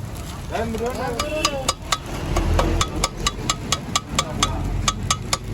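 Metal spatulas chopping kothu parotta on a flat griddle: a fast, even clatter of metal striking metal, about five strikes a second, starting a couple of seconds in after voices.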